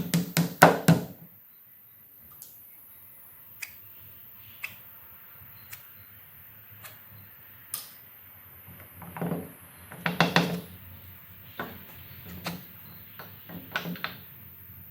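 Wooden knocks and taps from handling and fitting pieces of 2x4 lumber: a quick run of hard knocks at the start, scattered light clicks, then another cluster of knocks starting about nine seconds in.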